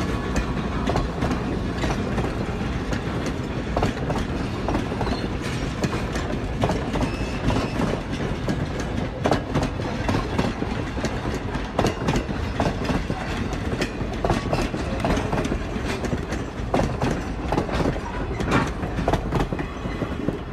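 Wooden passenger coaches rolling past close by, their wheels clicking and knocking over the rail joints in a steady, uneven clickety-clack over the rumble of the train.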